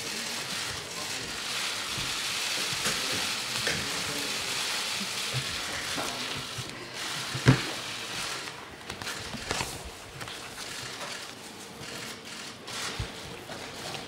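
Many press cameras' shutters firing in rapid, overlapping bursts, making a dense crackle that thins to scattered clicks in the second half. A single sharp louder knock comes about halfway through.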